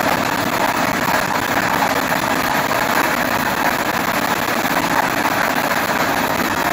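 Air-mix lottery ball machine running: a steady blower noise with plastic balls rattling against the clear acrylic drum as they are mixed.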